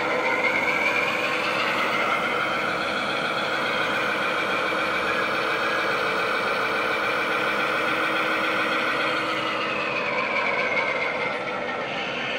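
Model train locomotive's sound system playing a diesel engine sound. A whine in it drops in pitch in the first two seconds, holds steady, and climbs back near the end.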